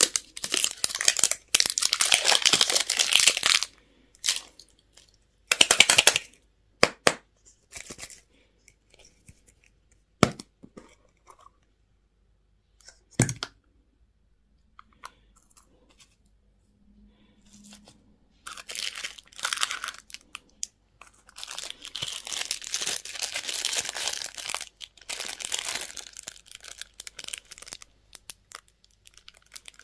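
Candy wrappers being torn open and crinkled, in noisy bursts. A few sharp clicks come about midway, then a quiet pause, then a long run of crinkling near the end.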